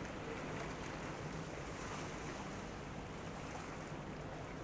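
Steady low drone of a large container ship's engines carrying across the water, mixed with the wash of small waves and wind on the microphone.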